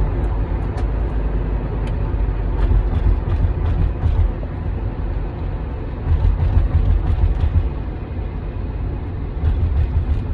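Ford Edge on the move: a steady low rumble of engine and road noise that swells a few times, with faint light ticks over it.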